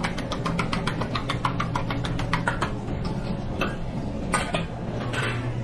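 A rapid run of sharp clicks or taps, about eight a second, that stops after two or three seconds and gives way to three single clicks spaced about a second apart, over a steady low hum.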